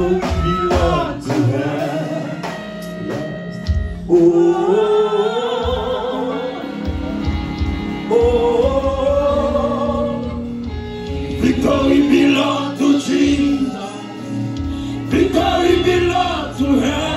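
Live gospel worship music: a singing voice holding long, wavering notes over keyboard and a drum kit.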